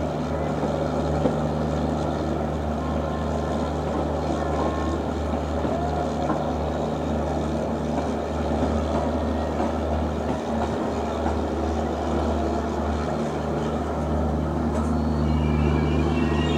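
Trains moving through a station: the steady low rumble and hum of an express's coaches rolling past. Near the end a high whine comes in and the sound grows a little louder as a WAP-4 electric locomotive draws alongside on the next track.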